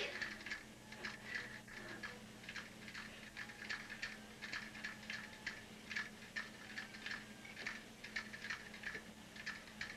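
Faint, irregular soft clicks and rustles, a few a second, over a low steady hum.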